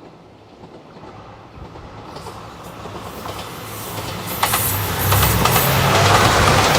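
JR 2700-series diesel limited-express train approaching and passing close by, growing steadily louder. Its wheels click over the rail joints from about two seconds in, and the low sound of its diesel engines grows strong near the end.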